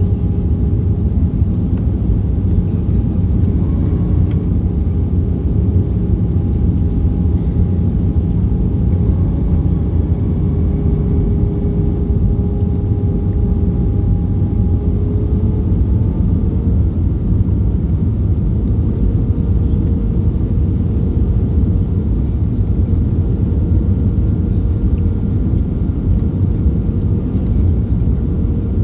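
Steady cabin noise inside an Airbus A320-214 in flight: a loud low rumble of airflow and its CFM56 engines. A faint engine whine steps up slightly in pitch a little past halfway, as the thrust setting changes.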